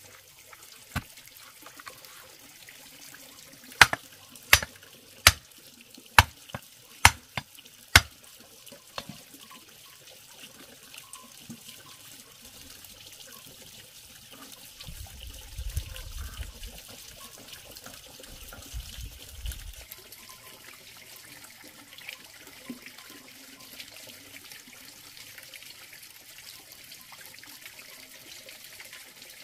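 Wooden stake being driven into hard ground: a run of about seven sharp knocks, roughly one a second, then the striking stops and a steady hiss remains.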